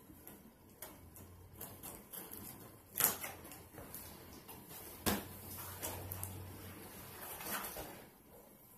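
Handling and opening a cardboard toy box: scattered clicks and rustling, with two sharp knocks about three and five seconds in.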